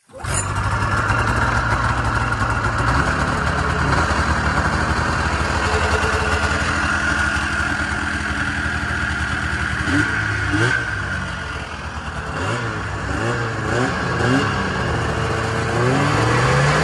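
2003 Arctic Cat Firecat F5 snowmobile's two-stroke twin engine catching abruptly and idling steadily, then, from about ten seconds in, blipped with a series of short throttle revs that rise and fall in pitch.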